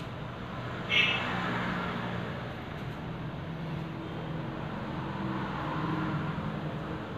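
Steady background noise with a low mechanical hum. About a second in comes a short, sharp high-pitched sound, the loudest moment.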